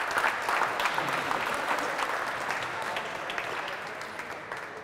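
Audience clapping, a dense patter of many hands that fades out toward the end.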